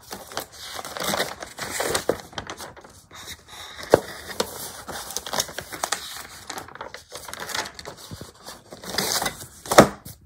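Paper pages of a printed catalog being handled and turned, rustling and crinkling with scattered clicks, a sharp tap about four seconds in and a louder knock just before the end.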